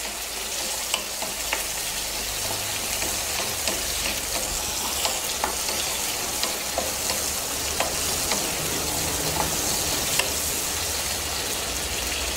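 Tomato, onion, garlic and curry leaves sizzling in hot oil in a non-stick kadai, stirred with a wooden spatula that clicks and scrapes against the pan now and then.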